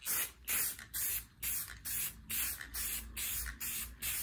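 Aerosol spray paint can hissing in short, quick bursts, about two to three a second, as a light coat of paint goes onto a headlight cover.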